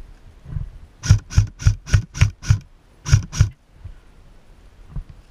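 Airsoft rifle firing single shots close by: six sharp cracks about three a second, a short pause, then two more.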